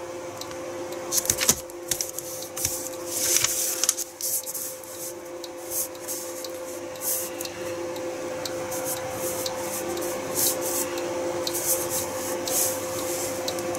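A paper instruction sheet rustling and rubbing under hands as it is pressed flat and read, in irregular brushes over a steady background hum.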